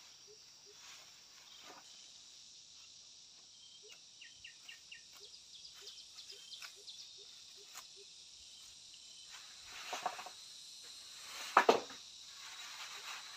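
Steady high insect chorus, like crickets, with a soft low note repeating about three times a second for the first eight seconds. Two sharp knocks come about ten and twelve seconds in, the second the loudest sound.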